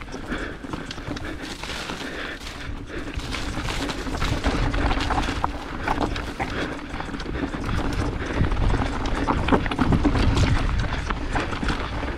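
Nukeproof Giga full-suspension mountain bike riding over rough singletrack: tyres rolling on dirt and rock with a constant clatter of chain and frame knocks over bumps. It gets louder and rumblier about a third of the way in.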